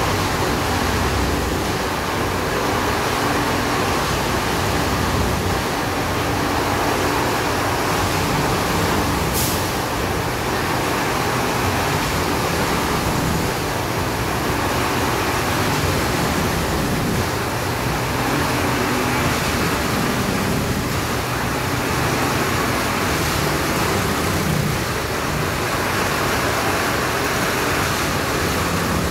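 Heavy diesel railway machinery running steadily: a loud, even engine rumble with a steady low hum. A brief sharp click cuts through once about a third of the way in.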